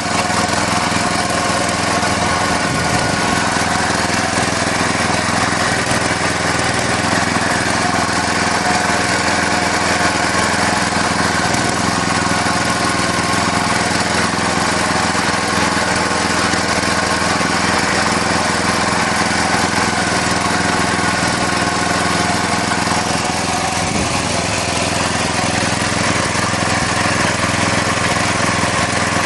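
Excavator engine running steadily at a constant speed, with a steady whine of several tones over the engine noise.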